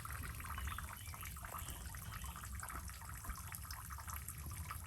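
Small waterfall on a rocky creek: a low flow of water splashing and trickling steadily over stone.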